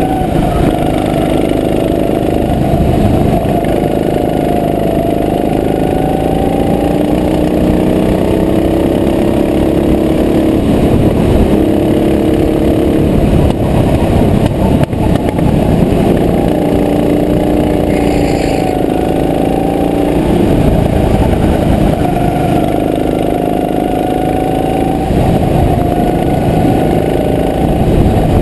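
Go-kart engine running hard, heard from the kart itself, its pitch rising and falling over and over as the throttle is opened on the straights and lifted for the corners.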